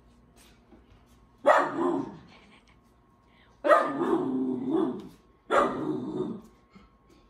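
Alaskan malamute puppy barking three times, the second bark drawn out for over a second with a wavering pitch.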